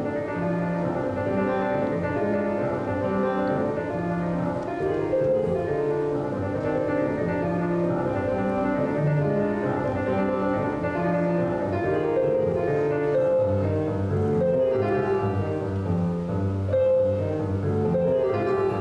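Grand piano played solo, a steady run of sustained notes and chords; deeper bass notes come in about two thirds of the way through.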